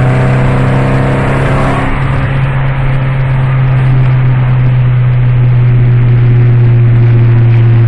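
Ford Focus 2.5's engine and exhaust running with a loud, steady, deep drone at an even engine speed, growing slightly louder about halfway through.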